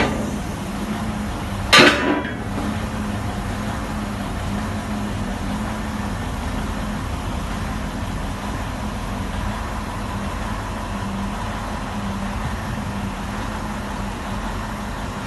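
An engine running steadily with a constant low hum, and a single sharp knock about two seconds in.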